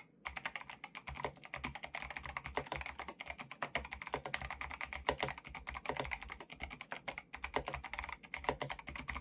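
Fast continuous typing on an 8Bitdo Type 'N' mechanical keyboard with Kailh Box White V2 clicky switches: a dense, uneven stream of sharp key clicks.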